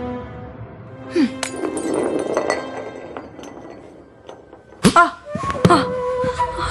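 Dramatic film background score of sustained tones, punctuated by sharp hits and thuds. The loudest hits come about five seconds in.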